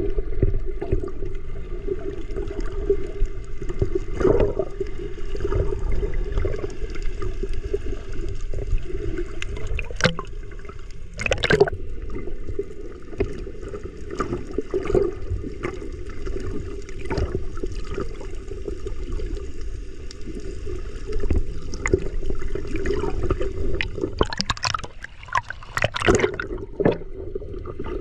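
Water rushing and splashing along the hull of a tour boat under way, over the steady hum of its engine, with a few louder splashes or knocks in the middle and near the end.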